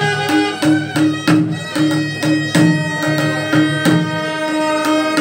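Traditional Kerala temple festival music: a long-held melody line with a steady drum beat of about three strokes a second.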